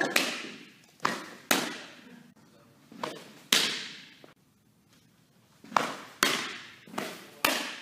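Softballs smacking into a catcher's mitt over a run of pitches: sharp, echoing pops, coming roughly in pairs about half a second apart.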